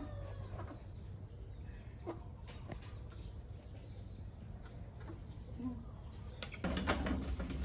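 Faint outdoor background with a steady high tone and scattered light clicks and taps. A rush of noise swells in near the end.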